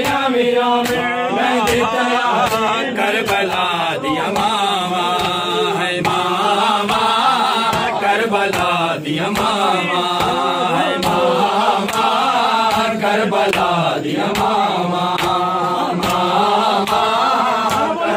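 Group of men chanting a Muharram noha lament together, with a steady rhythm of hands striking chests in matam about twice a second.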